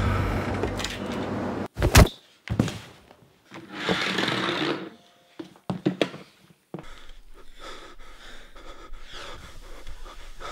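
A loud sound dies away in the first second and a half. Then come a couple of sharp thuds, a brief scuffling rustle and a few small knocks, as bodies move during a struggle on the floor.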